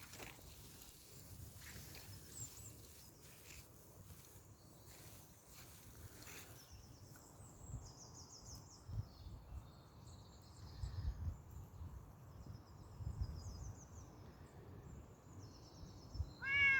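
Quiet outdoor ambience with high-pitched chirping trills, repeated again and again from about halfway through, over faint low rumbles. Near the end a Bengal kitten gives one short meow.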